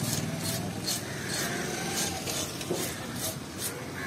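A flat hand scaler scraped along the side of a large fish, stripping the scales in short rasping strokes, about two a second.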